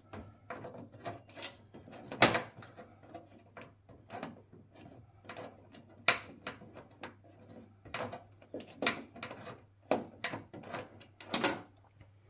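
Irregular clicks and knocks of hand tools and metal fittings being handled while a gas bonnet strut kit is bolted in, with sharper knocks about two seconds in, around six seconds in and near the end.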